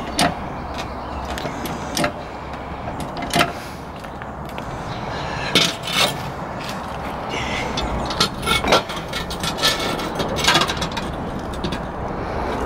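Trolley jack being pumped, then a steel axle stand set and adjusted under a car's rear axle: scattered metal clicks and clanks, a few early on and a cluster in the later part, over a steady low background rumble.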